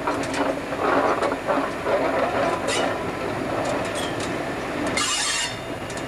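Passenger coaches of a passing train rolling round a curve, a steady rumble with irregular clicks and knocks from the wheels on the rails. A brief hiss about five seconds in.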